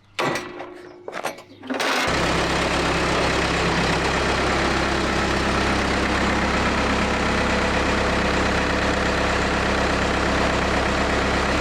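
A few short clunks, then about two seconds in the Case 430 skid steer's four-cylinder diesel engine starts and runs steadily. This engine is misfiring, which the owners suspect is caused by a stuck injector.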